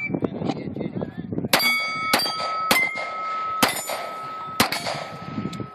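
Five pistol shots in quick succession, each followed by the clang of a round steel plate target being hit. The steel's ringing hangs on as a steady tone after the last shot.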